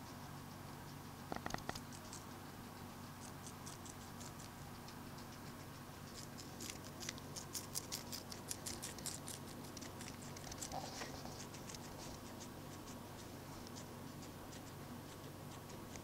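A guinea pig chewing lettuce leaves: quick, faint crunching clicks, thickest in the middle stretch, with a short rustle about a second and a half in.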